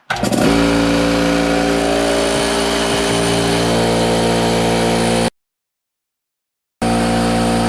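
Porter-Cable air compressor starting and running, its motor and piston pump giving a loud, steady drone. The compressor has broken reed valves and leaks air, so it builds only about 10 psi. The sound cuts off abruptly about five seconds in and resumes over a second later.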